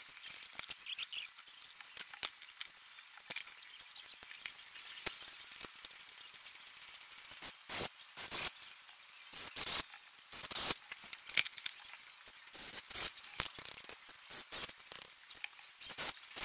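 Irregular small clicks, taps and scrapes of hand assembly: a screwdriver turning bolts into a wooden frame and metal hand tools and small bolts being picked up and set down, with louder knocks in the second half.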